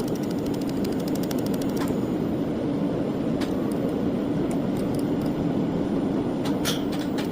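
Laser welding machine running with a steady hum, with scattered sharp clicks at irregular intervals.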